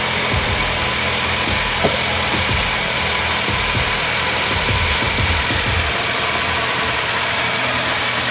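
Honda Mobilio's 1.5-litre four-cylinder i-VTEC engine idling steadily. Its sagging engine mount has been given a temporary fix, and the body no longer vibrates.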